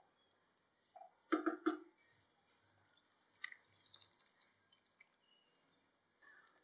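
Spatula stirring a thick vegetable-and-dal stew in a pot, with a quick cluster of wet slaps about a second and a half in; a few seconds later tamarind juice is poured in from a small cup, splashing into the liquid.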